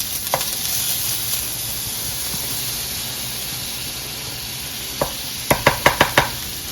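Butter sizzling as it melts in a hot frying pan, with a utensil striking and scraping the pan about six times in quick succession near the end as it is stirred.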